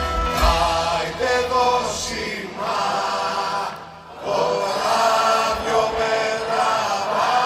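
Live folk-rock song played by a band with bass and drums, which drop out about two and a half seconds in, leaving a mass of voices singing the melody like a choir: a large concert audience singing along. The sound dips briefly about four seconds in before the singing carries on.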